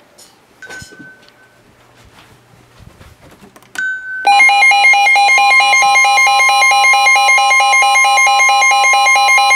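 A weather-radio warning alert: a loud electronic alarm starts about four seconds in, a steady tone with a fast warbling, alternating beep over it. Faint clicks and two short beeps come before it.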